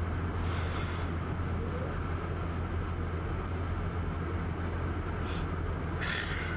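Steady low mechanical hum and rumble, like a running engine, with a few short hissing noises: one about half a second in and a longer one near the end.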